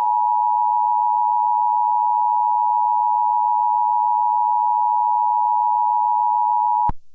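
Emergency Alert System attention signal: two steady tones sounding together in one unbroken, loud hold that cuts off abruptly near the end.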